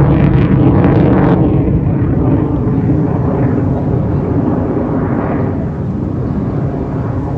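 Loud engine noise of a jet aircraft flying past, easing off gradually after the first second or so.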